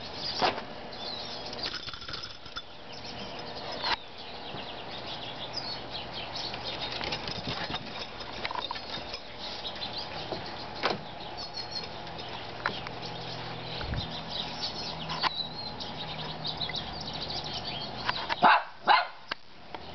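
Small dogs moving about on a wooden deck: scattered clicks and scuffling, with two loud sharp sounds close together near the end.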